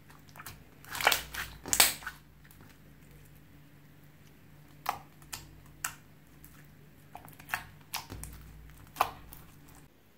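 Slime being squeezed and kneaded by hand, giving sharp wet clicks and pops: a quick run of them about a second in, then single pops every second or so.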